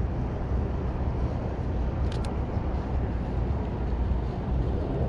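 Two quick mechanical clicks of a Canon M50's shutter about two seconds in, as a photo is taken, over a steady low rumble.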